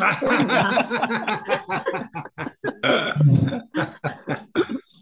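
Several people laughing hard together over a video call, in quick choppy bursts, with a low rough vocal sound about three seconds in.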